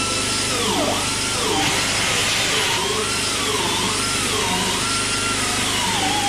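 Oxy-fuel cutting torch hissing steadily as its flame heats a steel part, with a wavering tone gliding up and down over it.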